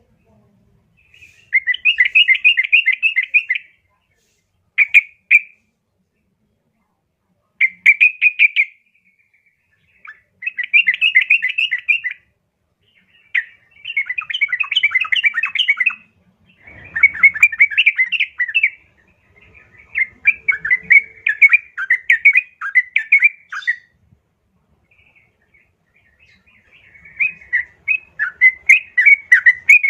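Yellow-vented bulbul (trucukan) calling, billed as a female calling to the male: bursts of quick, chattering notes, each a second to a few seconds long, repeated with short pauses.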